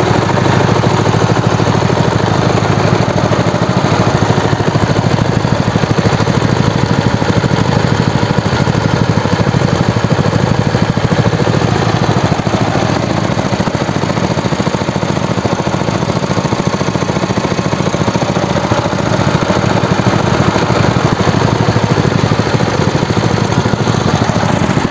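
Two small single-cylinder air-cooled petrol engines running together at a steady speed: a new Lifan 8 hp KP230 and a 7 hp Brait engine in a homemade mini tractor.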